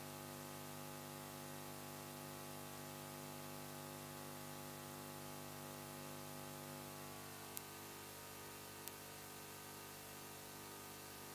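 Faint steady hiss with a low electrical hum made of many steady tones, broken past the middle by two brief sharp clicks a little over a second apart.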